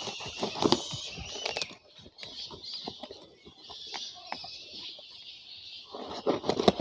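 Packing tape, newspaper and cardboard being cut with a small blade and torn open by hand: crinkling, ripping and scraping. It is quieter for a second or so near the middle, with a cluster of louder crackles near the end.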